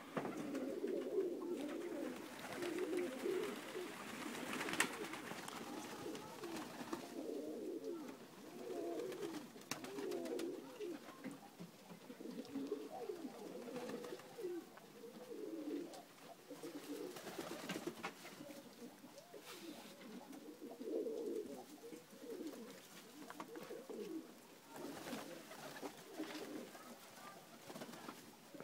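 A flock of Macedonian dunek pigeons cooing, many birds' low, warbling coos overlapping without a break.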